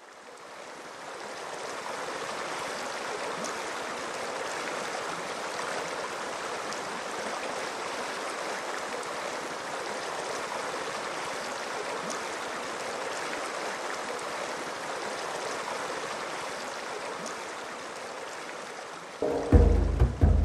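Shallow stream water flowing steadily, fading in at the start. About a second before the end, drum-heavy music starts with loud hits.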